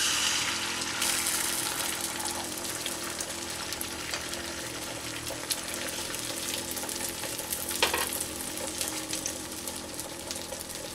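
Beaten egg with chopped onion and green chilli poured into hot oil in a nonstick kadai, sizzling sharply as it hits the oil and then frying steadily with fine crackles as the omelette sets.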